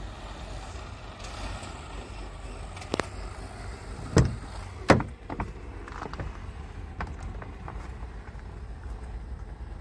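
Cab door of a Scania G450 truck being opened: a sharp click about three seconds in, then two loud clunks a second or so later as the door is unlatched and swung open, followed by a few faint ticks, over a steady low rumble.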